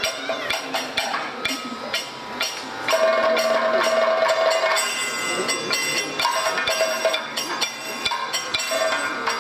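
Kathakali percussion accompaniment: a maddalam barrel drum played in quick, uneven strokes over ringing metal time-keeping percussion, with a held steady note for a couple of seconds around the middle.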